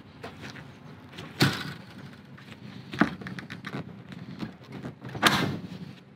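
Hard plastic cracking and knocking as a fractured fuel tank inlet check valve is wrenched and broken free of the plastic fuel tank by hand. There are three loud sharp cracks, about a second and a half, three seconds and five seconds in, with smaller clicks and creaks between them.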